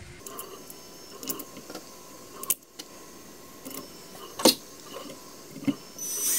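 Scattered clicks and knocks as a small stepper motor and its bolts are handled and pressed up against a metal motor bracket, the loudest knock about four and a half seconds in. Near the end a cordless drill-driver starts running, driving an M3 bolt into the bracket.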